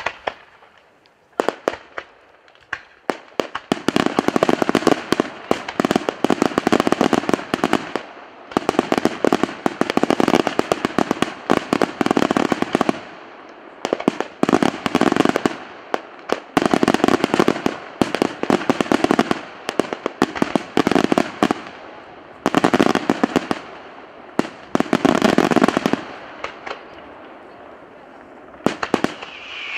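Daytime fireworks: a few single sharp bangs, then salvo after salvo of rapid firecracker bangs in dense rattling volleys, each a few seconds long with short pauses between.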